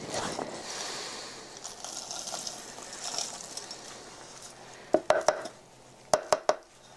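Footsteps in snow for the first few seconds. Then a tin can knocks against a paper-covered wooden table as spruce pitch is tipped out of it and the can is set down: two sharp knocks about five seconds in, and three or four more a second later.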